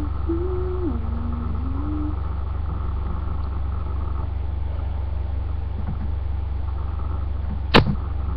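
Steady low electrical hum from a webcam recording setup. A few low hummed notes step up and down in the first two seconds, and a single sharp click comes near the end.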